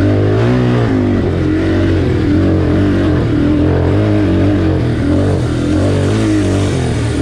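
Yamaha Warrior 350 ATV's single-cylinder four-stroke engine being ridden hard on the throttle, its pitch rising and falling over and over as the rider revs it and backs off.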